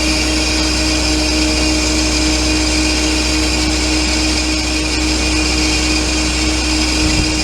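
Hydraulic excavator running steadily with its hydraulics driving a grapple attachment, a constant machine whine over the engine drone.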